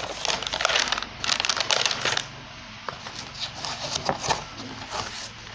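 Packaging crinkling and rustling as a box of products is opened and handled, dense for about the first two seconds, then giving way to scattered light clicks and taps.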